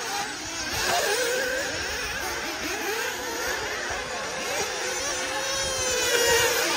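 Several 1/8-scale nitro buggy engines on the track, winding up and down in pitch, one buggy rising more loudly near the end as it accelerates.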